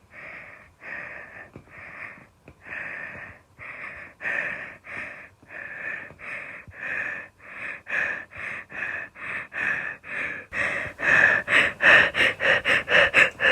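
A person's heavy, rapid breathing in short gasping breaths, about two a second, quickening to about four a second and growing louder over the last few seconds: hyperventilation, as in a panic attack.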